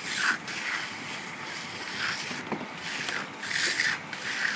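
Hand trowel scraping and swishing over wet concrete along the form edge in several uneven strokes, smoothing the slab's surface.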